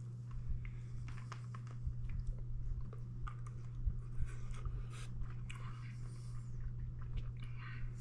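Wet clicks and smacks of a mouth working a hard lollipop held between the lips, scattered irregularly, over a steady low hum.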